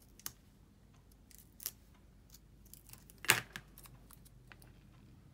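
Hands handling and pressing paper pumpkin cutouts, backed with foam adhesive squares, onto a cardstock card: scattered light clicks and paper rustles, with one sharper tap a little over three seconds in.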